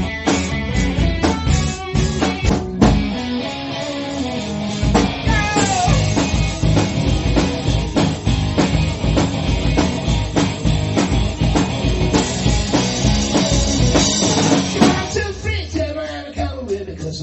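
Rock band playing with a drum kit and electric guitar, with some sung vocal lines; the full band thins out near the end.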